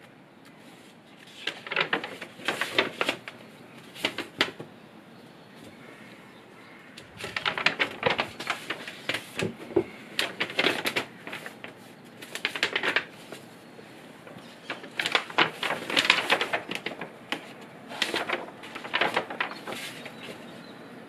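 Sketchbook paper rustling and crackling as the pages are handled and turned, coming in several bursts of quick crinkles with quieter gaps between.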